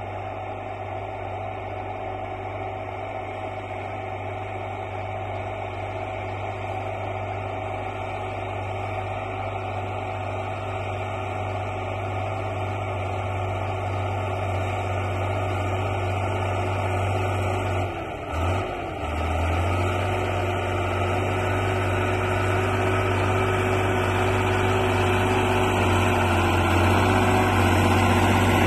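Ursus tractor's diesel engine running steadily under load while pulling a seed drill and cultivator, growing louder as the tractor comes closer. About two-thirds of the way through, the engine note dips briefly and then recovers.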